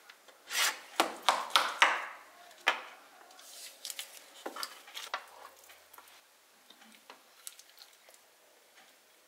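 A metal knife and spatula cut through baked moussaka and scrape against a metal baking tray: a quick run of scrapes and clicks in the first few seconds, then a few lighter, sparser taps.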